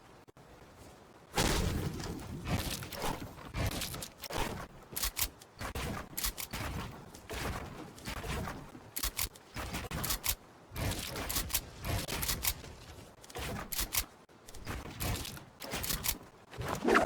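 Rapid, irregular clicks, taps and rattles of computer parts being handled and fitted together, starting about a second in.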